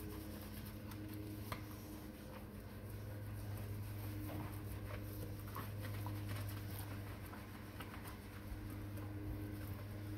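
Scrubbing a wet, shampoo-lathered small dog in a sink with a brush and hands: soft scattered squishing and rubbing in the fur, over a steady low hum.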